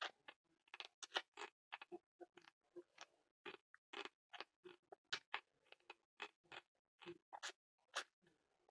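A person chewing food close to the microphone: a quiet, irregular run of wet mouth clicks and smacks, about three or four a second.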